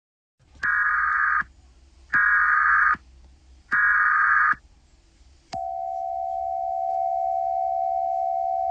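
Emergency Alert System header: three short bursts of digital data tones, each just under a second long, about a second and a half apart. About five and a half seconds in, a steady, unbroken attention tone starts with a click and holds.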